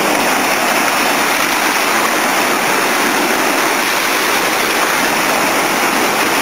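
Seawater surging and foaming over shoreline rocks, a steady rushing wash.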